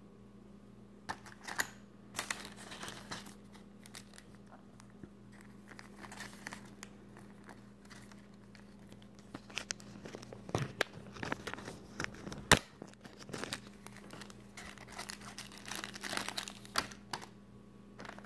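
Plastic bags and paper packaging crinkling and rustling in irregular spells as they are handled and unwrapped, with one sharp click about two-thirds of the way in.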